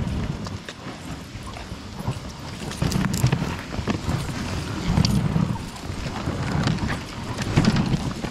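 A team of Canadian Inuit sled dogs running on a packed snow trail: a busy, uneven patter of paws hitting snow as the sled rides along behind, with short clicks and rattles from the dogs' chain leads and harness.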